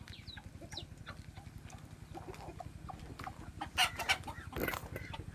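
Domestic chickens clucking, with many short calls and a few louder calls about four seconds in.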